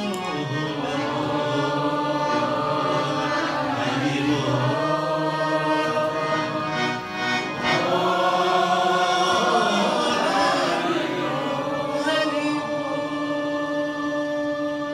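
Man singing a devotional chant into a microphone over held harmonium chords.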